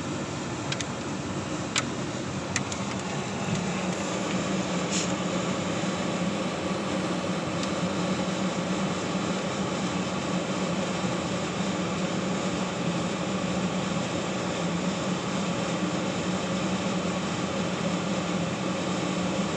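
Steady rumble of a car driving slowly over a wooden plank bridge deck, heard from inside the cabin, growing a little louder a few seconds in. A few light clicks in the first five seconds.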